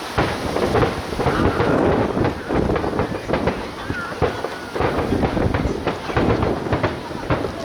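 Distant fireworks going off in rapid succession, a dense run of booms with a rumbling low end, alongside spectators' voices.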